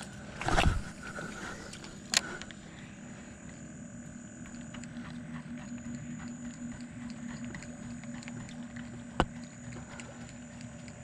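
Steady low hum, most likely a boat motor running across the water, under the sounds of a rod and reel being handled. A thump comes about half a second in, and sharp clicks come near two seconds and again near nine seconds.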